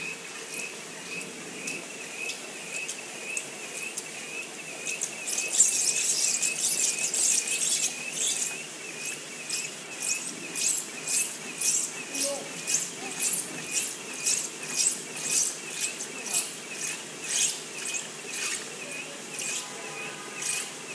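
Desktop label-stripping machine running, its rollers and reels giving a repeated high squeak a few times a second. From about five seconds in a louder rasping swish joins it and settles into a regular beat of about one and a half a second as the label web is pulled over the peeling edge.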